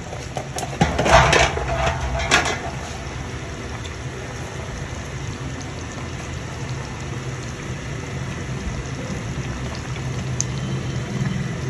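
Chicken karahi gravy simmering in a pan on a gas stove, a steady bubbling over a low hum. In the first two and a half seconds there are a few short sharp handling noises as chopped coriander goes in.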